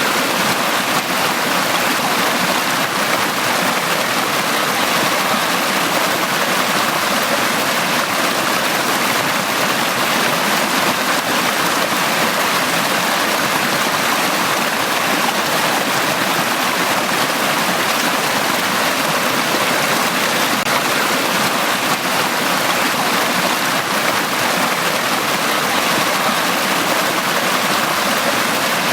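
Valley stream running steadily, an even rushing of water with no change throughout.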